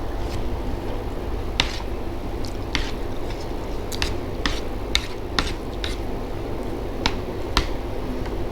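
Close-up mouth sounds of chewing crisp fried food, with about a dozen sharp crunches and crackles at irregular intervals, over a steady low rumble in the background.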